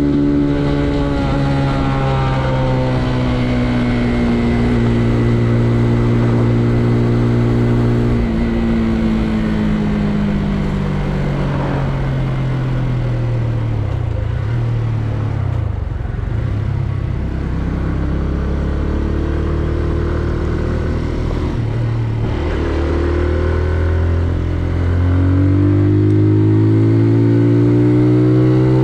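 Benelli Leoncino 125's single-cylinder engine and exhaust under way. The engine note falls over the first half, with a step down about eight seconds in. It then rises steadily again as the bike accelerates, with another step partway through and a drop right at the end.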